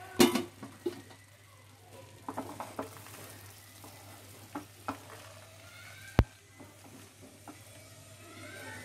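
A spatula stirring and folding cooked rice in a non-stick pan: soft scrapes and a few knocks against the pan, the sharpest just after the start and about six seconds in, over a low steady hum.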